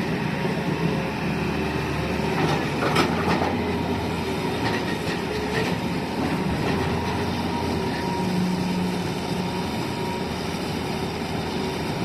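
Excavator's diesel engine running steadily as it works, with sharp metallic clanks about three seconds in and a few lighter ones around five to six seconds.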